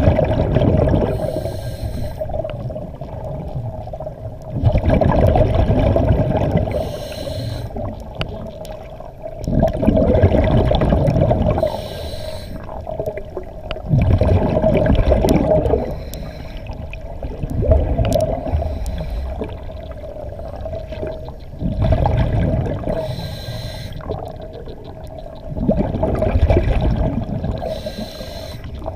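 A diver breathing underwater through breathing gear, in cycles about every four to five seconds: a short hiss on each inhale, then a rumbling, gurgling rush of exhaled bubbles. A steady hum runs underneath.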